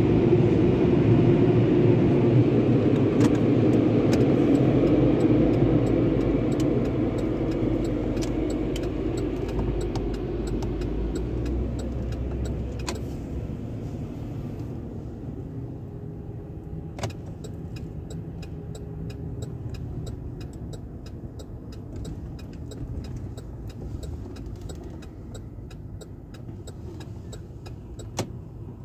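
Car driving slowly, heard from inside the cabin: a steady engine and road rumble that fades as the car slows to a crawl. In the second half a run of faint, evenly spaced ticks sits under it, with a sharper click twice.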